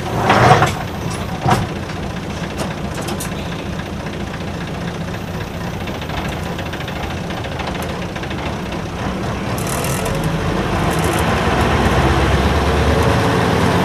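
Isuzu Cubic KC-LV380L bus's V8 diesel engine running at a standstill, with a short loud burst about half a second in and a brief high air hiss around ten seconds in; over the last few seconds the engine grows louder as the bus pulls away.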